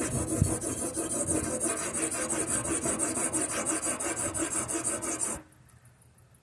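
Sharpening stone of a guided knife sharpener scraping rapidly back and forth along a clamped steel blade in quick, even strokes. It stops abruptly about five seconds in.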